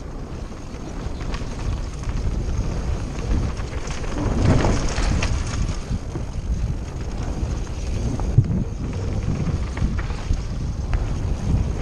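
Wind rushing over the microphone mixed with the rumble of a mountain bike's tyres and frame rattling down a rough trail at speed, with scattered knocks from rocks and bumps and a louder stretch about four seconds in.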